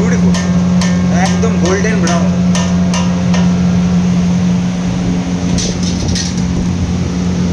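Commercial kitchen noise: a steady low hum with a string of sharp clinks and knocks of metal utensils, and voices in the background during the first few seconds.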